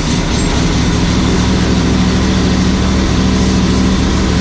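Ferris Z2 stander mower's Vanguard 28 hp EFI V-twin engine running steadily just after starting, already warmed up.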